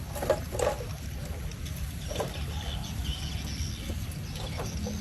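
A steady low rumble with a light hiss and a few scattered faint knocks.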